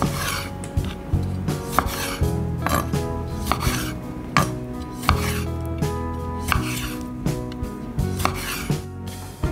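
A chef's knife slicing through grape tomatoes and knocking on a wooden cutting board about once a second, each stroke a short slicing hiss ending in a knock. Soft background music plays underneath.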